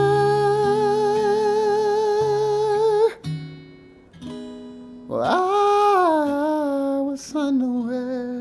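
A man singing a long note with vibrato that breaks off about three seconds in. After a short stretch where only the accompaniment sounds, he sings a second long note that sweeps up and then steps down. Under both is a soft acoustic guitar accompaniment.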